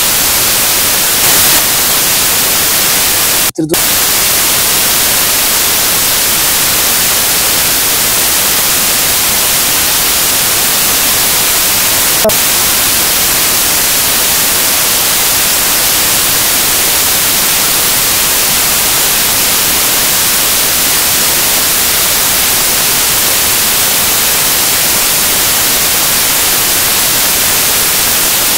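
Loud, steady hiss of static, brightest in the high end, with a brief dropout about three and a half seconds in.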